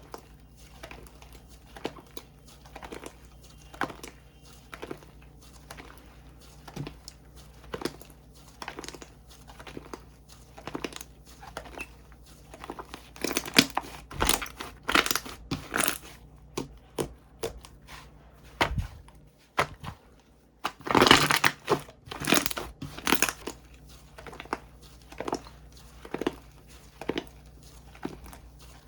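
Bubble cream slime being squeezed and stretched by hand, giving a steady run of small sticky clicks and pops. Denser, louder bursts of popping come about halfway through and again about two-thirds of the way in.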